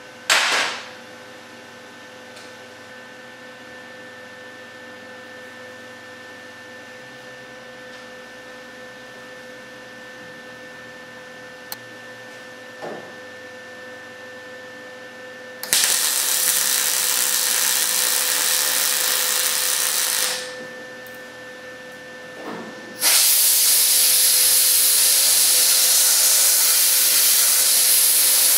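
MIG welder welding in a car's rear package tray extension panel: a short burst of arc near the start, then two long runs of steady arc sizzle, one about halfway through lasting about five seconds and one starting near the end. A faint steady hum lies underneath between welds.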